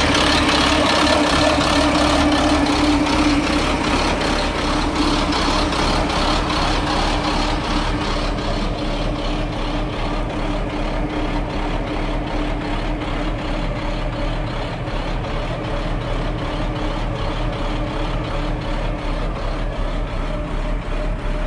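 Truck's diesel engine idling steadily. It is loud and bright with the hood open at first, then quieter and duller from a few seconds in, as heard from inside the cab.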